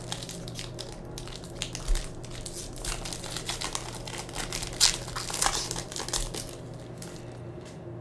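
Foil wrapper of a Panini Prizm basketball retail pack being torn open and crinkled by hand. The crackling goes on almost without a break, with sharper crinkles about two and five seconds in, and dies down near the end.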